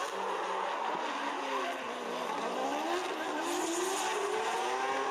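Nissan GT-R drift car's engine revving up and down through a drift, its pitch climbing again over the second half, with the rear tyres squealing and spinning on the asphalt.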